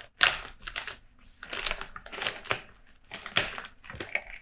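Keyboard packaging being handled and unwrapped: irregular crinkling and rustling, a dozen or so short strokes.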